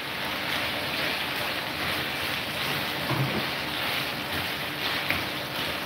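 Chicken and diced bell peppers sizzling in a frying pan on a gas hob while being stirred with a spatula: a steady hiss.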